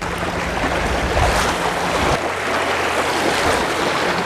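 Sea waves washing over the rocks at the water's edge, with wind buffeting the microphone.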